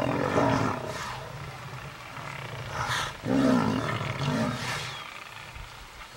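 Loud calls at a kill where lions are pinning down a Cape buffalo: two bursts of deep growling, bellowing sound, one right at the start and a longer one about three seconds in, fading toward the end.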